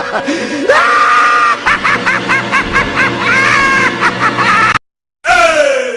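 A string of dance-music sound effects over a beat: a rising pitched glide, held synth or vocal tones, then a fast stutter of short repeated notes. It cuts to silence for a moment near five seconds in, then a falling pitch sweep comes in.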